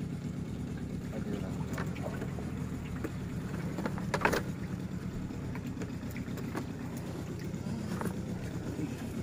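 Cast net being hauled in by its rope over the side of a small boat, with small splashes and knocks, over a steady low rumble. One louder splash or knock comes about four seconds in.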